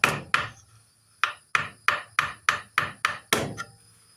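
A chisel being struck into a wooden pistol stock, cutting out the ramrod channel: sharp wooden knocks about three a second. There is a pause of about a second after the first two strikes, and the strikes stop shortly before the end.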